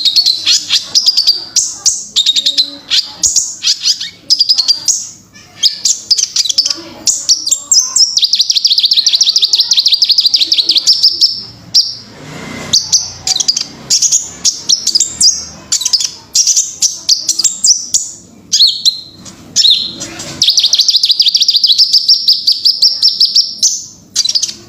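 Kolibri ninja sunbird singing: high, rapid twittering phrases broken by long, fast, even trills about eight seconds in and again about twenty seconds in.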